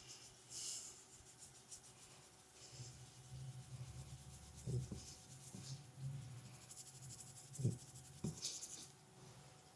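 Hands rubbing and kneading through hair and over the scalp in a head massage: a soft, scratchy rustling, with a few dull thumps in the second half.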